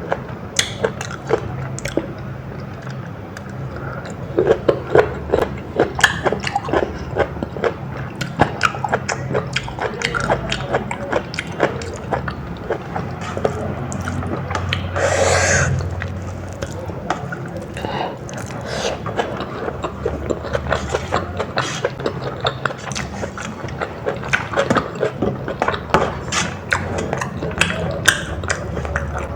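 Close-miked chewing and eating of biryani and raw mango: many short wet mouth clicks and smacks, over a low steady hum. About fifteen seconds in there is one longer, louder noisy sound lasting about a second.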